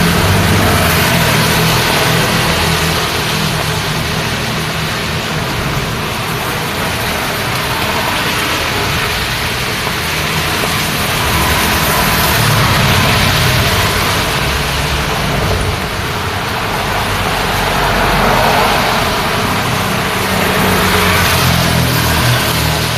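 Steady hiss of rain and wet road over the low rumble of passing traffic engines, swelling as louder vehicles go by about halfway through and again later on.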